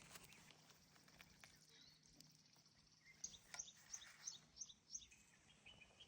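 Faint bird calls against a quiet outdoor background: a quick run of short high chirps starting about three seconds in, then a lower series of repeated notes near the end.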